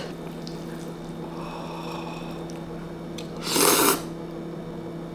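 A person slurping a mouthful of kongguksu noodles from cold soy milk broth: one loud slurp of about half a second, about three and a half seconds in, over a steady low hum.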